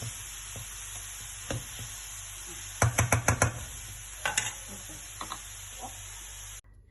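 Vegetable empanada filling sizzling in a frying pan over a low flame while a spatula stirs it and knocks against the pan, with a quick run of about five knocks around three seconds in. The sizzle cuts off suddenly near the end.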